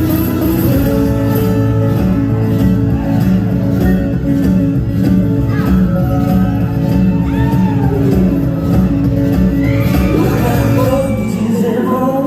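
Live band music with guitar: an instrumental passage of held notes over a steady beat, with some bent, gliding notes in the middle.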